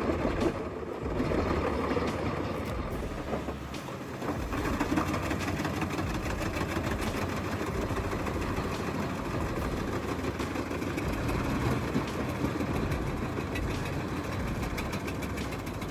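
Heavy industrial shredder or crusher running under load: a steady engine drone overlaid with continuous dense crackling and crunching as material is broken up.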